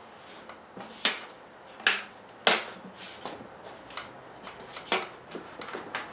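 Irregular scrapes and clicks of a rigid flex-duct end being worked against and into the mouth of a 4-inch PVC pipe, a fit too tight to go in.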